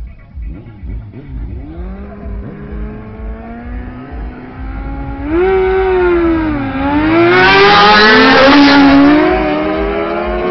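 Two sport motorcycles revving in short blips at a drag-race start line, then launching hard about five seconds in. The engine note climbs steeply, dips once at an upshift and climbs again, then eases off as the bikes pull away down the road.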